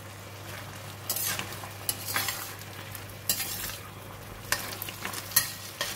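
A slotted metal spatula stirring and scraping chicken and vegetables around a stainless steel wok in strokes about once a second, with a few sharp clinks of metal on metal. The food sizzles in the sauce between strokes.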